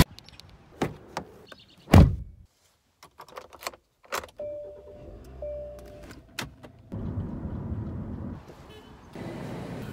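Getting into a car and starting it: clicks and a heavy thud about two seconds in as the door shuts, keys clicking into the ignition, two short chime beeps, then the engine starts and runs steadily from about seven seconds in.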